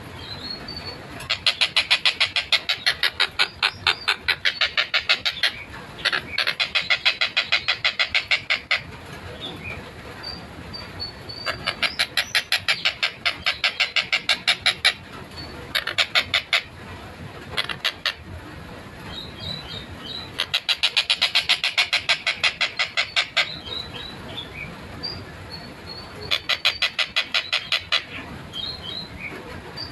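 Tengkek buto kingfisher calling in runs of rapid, harsh repeated notes, each run lasting one to four seconds, about seven runs with short pauses between. Faint high chirps sound in the gaps.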